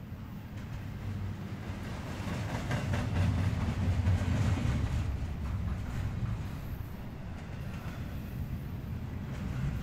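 Norfolk Southern intermodal freight train cars rolling past: a steady rumble of steel wheels on the rails with a rapid clatter, swelling to its loudest a few seconds in and then easing off.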